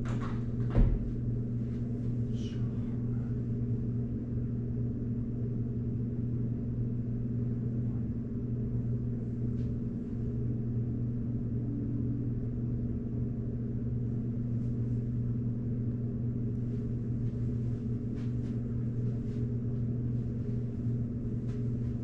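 Steady low hum throughout, with a single sharp knock just under a second in.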